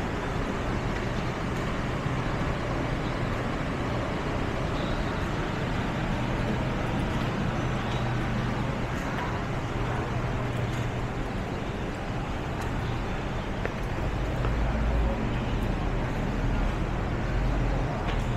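Steady city traffic noise, with the low hum of vehicle engines throughout and a heavier low rumble in the last few seconds.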